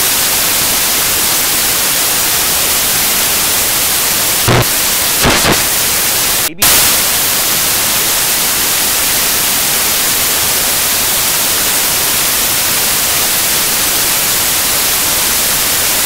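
Loud, steady white-noise static hiss. There are two short pops about four and a half and five seconds in, and a brief dropout in the hiss a little later.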